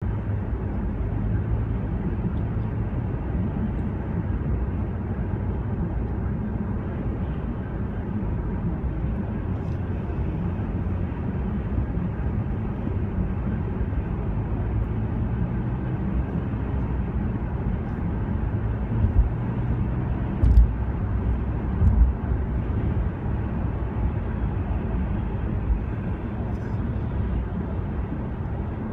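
Steady road and engine noise inside a moving car's cabin, with a few low thumps about two-thirds of the way through.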